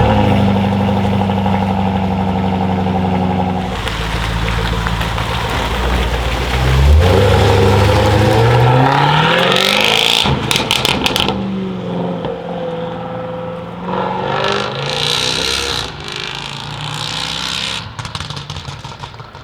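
Jaguar F-Type SVR's supercharged 5.0-litre V8 holding steady revs, then accelerating hard with a rising note. A quick string of exhaust crackles comes near the middle, and the engine then grows fainter as the car pulls away.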